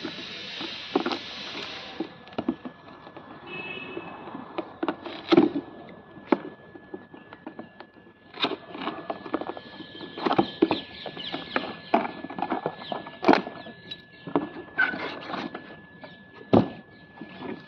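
Cardboard box and its packaging handled and opened by hand: irregular crackles, taps and rustles of cardboard and plastic wrapping, after a steady hiss in the first two seconds.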